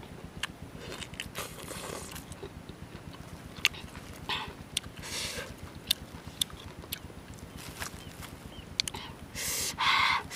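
Close-up eating of juicy cashew apples: biting and chewing with sharp wet mouth clicks and smacks. Near the end there is a louder rustling noise for about a second.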